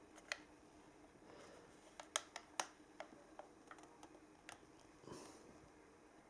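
Faint, scattered small clicks and taps from handling the quadcopter and its box parts, about half a dozen in all, with a soft rustle about five seconds in; otherwise near silence.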